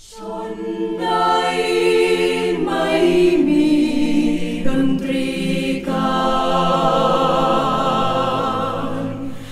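Mixed choir of men's and women's voices singing in harmony, holding sustained chords in several phrases with brief breaks between them.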